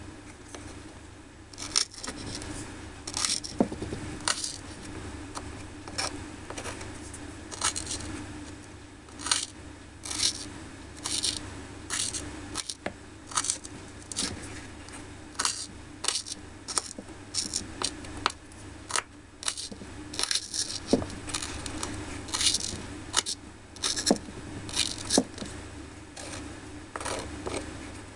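Small kitchen knife mincing food on a miniature wooden cutting board: sharp, irregular clicks and taps of the blade against the wood, about one or two a second, with some scraping between them.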